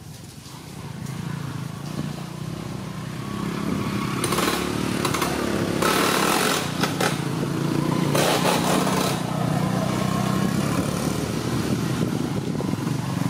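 A small engine running steadily, swelling over the first few seconds, with a few short louder surges between about four and nine seconds in.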